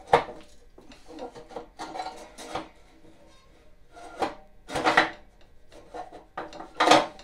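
Metal scraping and rubbing in several short, uneven strokes, with a sharp click at the start, as pliers work at a stuck part in a Snapper riding mower's front frame. The part, with a washer welded onto it, will not come free.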